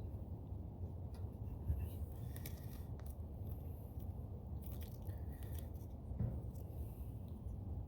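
Brake grease being worked onto the metal shims of a brake pad bracket: a few faint scrapes and light clicks over a steady low background rumble.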